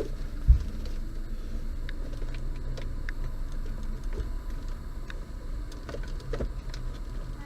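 Hands working a plastic dashboard trim panel loose in a pickup's cab: scattered light clicks and rattles, with one low thump about half a second in.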